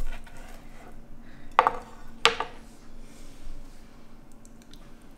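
Knife and fork scraping and clinking on a plastic cutting board while cutting a bacon-wrapped chicken tender. Two sharp, ringing clinks come about a second and a half in and again just over two seconds in, over a faint steady hum.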